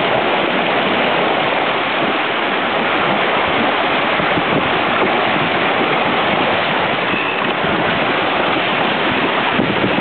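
Water rushing and splashing along the hull of a carbon prototype Mini 6.50 sailboat moving fast under sail, a loud steady wash, with wind on the microphone.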